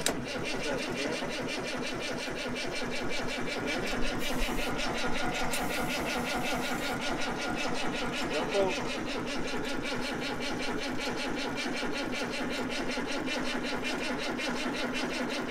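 Detroit Diesel 3-53 three-cylinder two-stroke diesel being cranked over by its starter after a click as the starter engages, turning over at a steady, even rhythm without catching. The crew suspects fuel starvation and weak battery cables.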